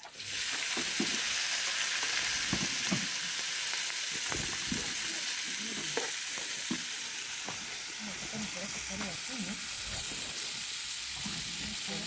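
Chopped kale frying in hot oil with onions in a metal sufuria: a loud, steady sizzle that starts suddenly and eases a little after about eight seconds, with a few faint knocks.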